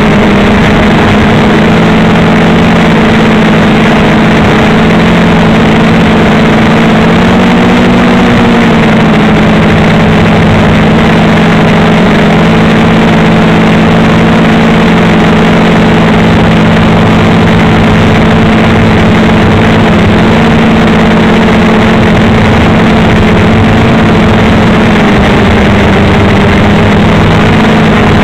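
Blade 350 QX3 quadcopter's brushless motors and propellers humming steadily as it hovers, heard loud and close from its own on-board camera; the pitch rises and falls briefly about eight seconds in as the rotors adjust.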